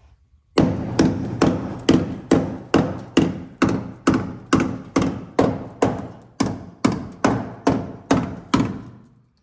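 A steel hammer strikes the rusty steel frame rail of a 1980 Toyota pickup in a steady run of about twenty blows, a little over two a second, each ringing briefly. The hammer is being used to test the frame for rust rot, and the owner judges this stretch decent.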